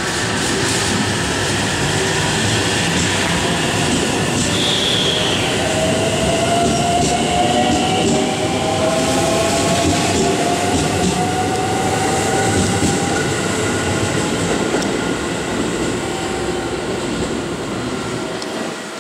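JR 313-series electric train pulling along a station platform and accelerating away. The motor whine rises steadily in pitch over the rumble of the wheels and a faint clicking from the rails. The sound fades near the end as the last car clears.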